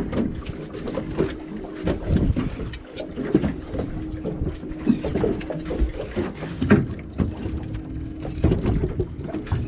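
Irregular knocks and bumps on a fiberglass boat deck, over a faint steady hum that starts about a second in and stops near the end.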